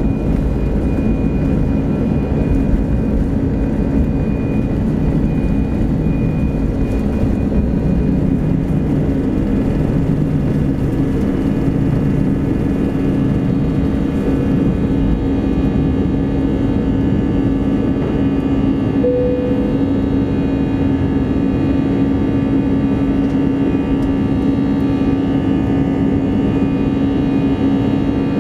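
Airbus A320's jet engines at takeoff thrust, heard inside the cabin over the wing: a loud, steady roar with a held hum. The deep rumble of the wheels on the runway dies away after liftoff, partway through, as the jet climbs.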